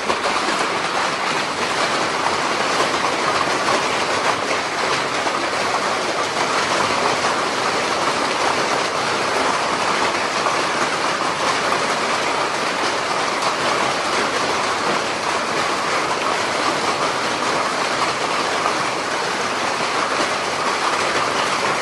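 Hailstorm with rain: a dense, steady clatter of many hailstones striking hard surfaces.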